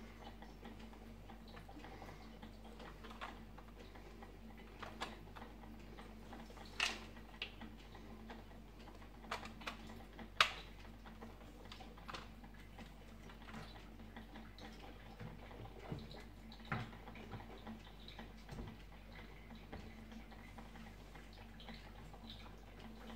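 Drip coffee maker with its glass carafe, giving scattered small ticks and clicks at uneven spacing, a few of them sharper and louder, over a faint steady hum.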